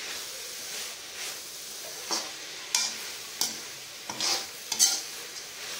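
Mint leaves, garlic, urad dal and dried red chillies sizzling in oil in a metal kadai, stirred with a perforated metal spatula. From about two seconds in, the spatula scrapes across the pan about five times, the sharpest a second before the end.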